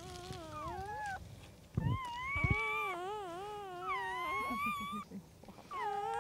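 Newborn puppies, about two days old, whining and crying in high, wavering cries: two overlap at the start, a long wobbling cry runs from about two seconds in, and another begins near the end. A soft thump comes just before the long cry.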